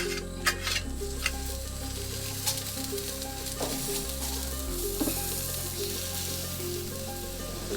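Fish sizzling as it cooks over a wood fire: a steady hiss with a few sharp pops, under quiet background music.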